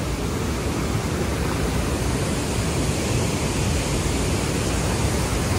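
Steady rush of a waterfall in heavy flow: a broad, even noise with a low rumble beneath it.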